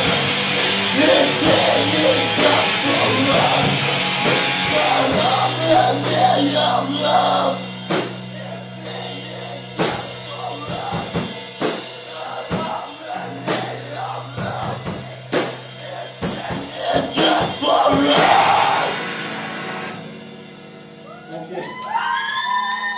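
Live rock band playing loud, with drum-kit hits over held, distorted low notes and a singer's voice in the first few seconds. The song winds down near the end, leaving a few held, ringing tones.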